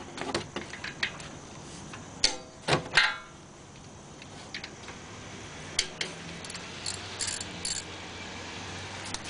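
Scattered metallic clinks and taps of a wrench and bolts at a car's front disc-brake caliper while its 13 mm caliper mounting bolts are being taken out. The loudest clinks, briefly ringing, come two to three seconds in, with fainter ticks later.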